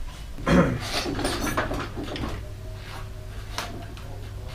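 Clunks and rattles of metal bicycle parts being handled in a workshop: a loud clunk about half a second in, a scatter of lighter knocks and rattles after it, and a single click later, over a low steady hum.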